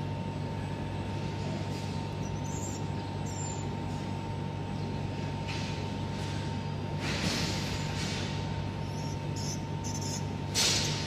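Steady low machine hum with a faint constant whine, overlaid in the second half by a few brief soft hissing rustles as the laser cutting head is handled and fitted by hand; the loudest comes near the end.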